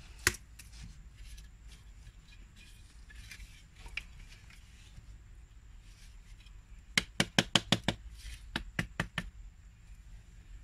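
Sharp wooden knocks of green bamboo striking green bamboo: a single knock near the start, another about four seconds in, then a quick run of about eight knocks followed by four more spaced ones.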